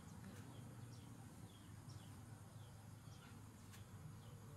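Near silence: a faint outdoor background with a bird giving short, high, falling chirps about every half second over a low steady rumble.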